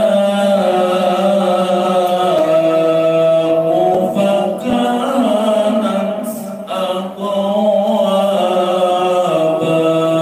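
A solo male voice reciting the Quran in the drawn-out, melodic murottal style, holding long chanted notes. It pauses briefly twice near the middle, for breath.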